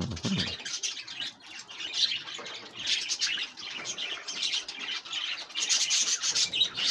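Many caged budgerigars chirping and warbling in a continuous chatter.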